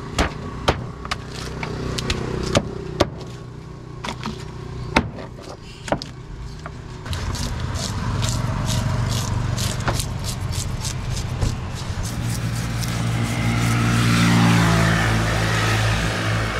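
Sharp knocks of a heavy knife chopping through a large catla on a wooden board, several seconds apart. From about seven seconds in, a motor vehicle engine runs close by under the chopping, loudest near the end.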